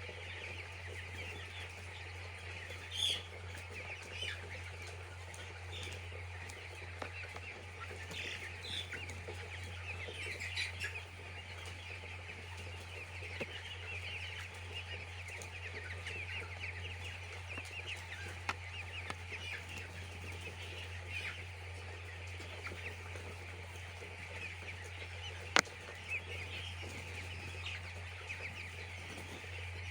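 A large flock of poultry chicks peeping continuously, many high chirps overlapping, over a steady low hum. A few sharp clicks stand out, the loudest about 25 seconds in.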